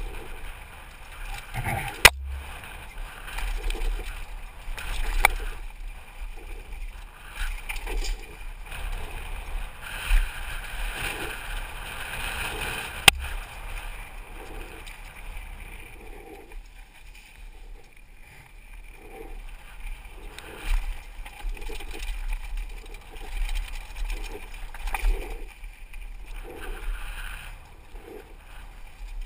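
Mountain bike descending a rocky dirt singletrack, its tyres rolling and crunching over dirt and stones and the bike rattling, with wind rumbling on the helmet camera's microphone. Two sharp knocks stand out, about two seconds in and about thirteen seconds in.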